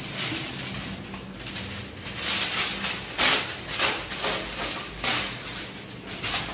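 Kitchen work sounds from paratha-making: a series of short rustles and clatters, the loudest about three seconds in, over a steady low hum.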